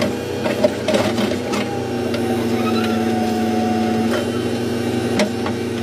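Backhoe loader's diesel engine running steadily, heard from inside the cab, with a higher whine held for a couple of seconds midway as the digging arm works, and scattered knocks and rattles.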